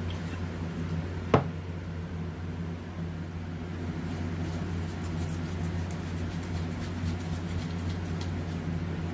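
A shop rag rubbing over a painted panel, as faint scratchy strokes in the second half, over a steady low mechanical hum. A single sharp knock comes about a second and a half in.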